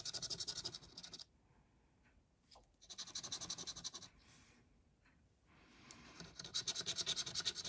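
A coin scratching the silver coating off a paper scratchcard in quick back-and-forth strokes, in three spells with short pauses between.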